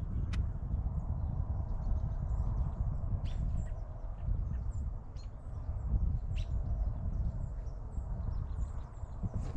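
Wind rumbling on the microphone, with scattered short bird chirps.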